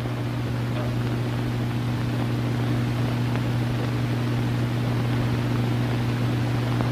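Steady low hum and hiss of an early-1930s film soundtrack, with no other sound standing out.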